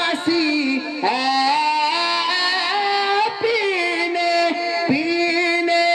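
A qari's solo male voice singing devotional verse into a microphone, in long held notes with ornamented glides.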